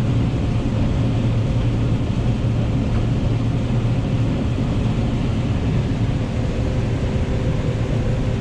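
Combine harvester running steadily while harvesting corn: a constant low engine and machinery drone, with a faint steady hum joining about five seconds in.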